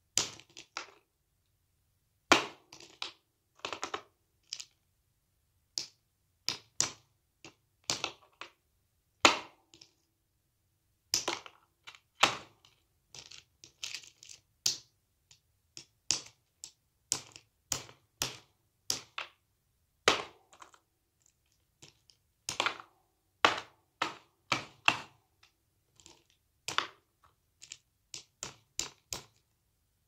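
A sang shikan bird's beak striking and cracking an almond shell against a rock: irregular sharp taps and cracks, sometimes single and sometimes in quick runs of several.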